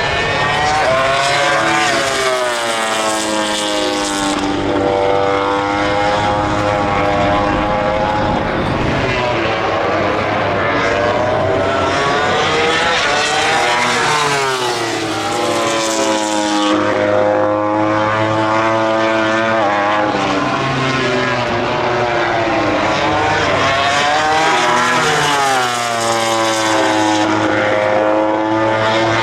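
MotoGP racing motorcycles with four-cylinder engines running hard past the track, loud and continuous. The engine pitch rises and falls repeatedly as the bikes accelerate and change gear, with several bikes passing in succession.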